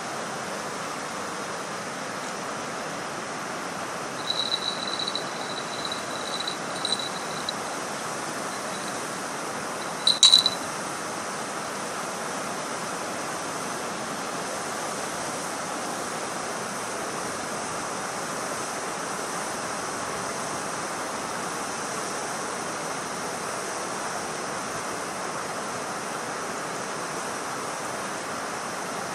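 Steady rushing of water spilling over a river dam. A few short high-pitched chirps come between about four and seven seconds in, and a louder one with a click at about ten seconds.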